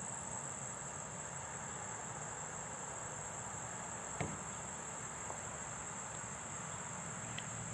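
Crickets singing in a steady, unbroken high-pitched chorus, with a single sharp click about four seconds in.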